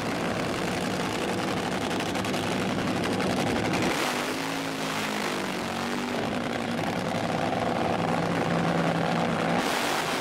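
Drag racing car engines running loud and steady, their pitch holding and then shifting to a new level several times.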